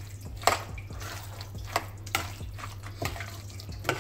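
A spoon stirring thick koottu curry of chickpeas, yam and plantain in a stainless steel pot, with wet squelching and a few sharp clinks of the spoon against the pot.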